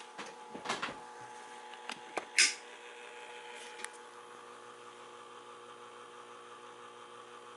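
1969 Smith-Corona Electra 120 motor-assisted typewriter: a few last key strikes and one louder, longer clatter in the first two and a half seconds, then its electric motor humming steadily on its own.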